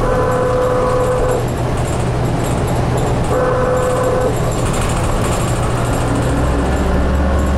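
Interior of a 2004 New Flyer DE60LF hybrid articulated bus under way: its Caterpillar C9 diesel and Allison EP50 hybrid drive run steadily. The engine note drops lower and grows heavier near the end. Two steady higher-pitched tones, each about a second long, sound at the start and again about three seconds in.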